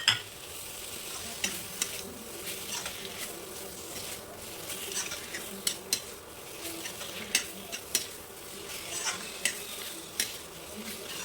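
A spoon stirring and scraping in a kadai, knocking against the pan at irregular moments, while paneer and vegetables sizzle in oily masala with a steady hiss.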